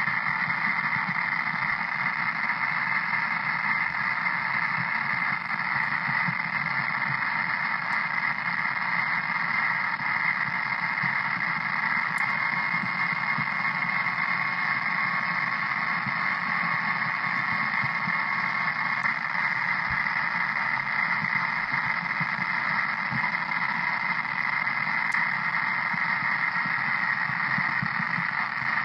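Steady hiss of static from an ICOM IC-7100 HF transceiver's receiver in USB-D data mode, unchanged as it is switched between the 10 m, 15 m and 20 m PSK frequencies. A faint steady tone sounds for a few seconds midway. This is static the owner hears on every band in data mode: it stays the same with the speaker unplugged, and the antenna has tested fine.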